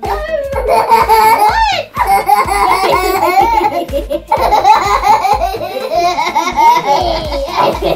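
Two young girls laughing hard together, long fits of high-pitched giggles and belly laughs broken by a couple of short pauses.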